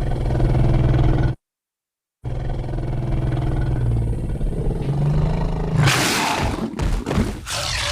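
Designed monster roars for a dinosaur-like cryptid: a low roar of about a second and a half, a short pause, then a long, low growling roar that breaks into harsher, choppy calls near the end.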